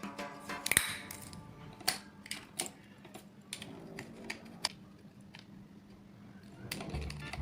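Irregular light clicks and taps of small hard objects, roughly a second apart, over faint background music that grows louder near the end.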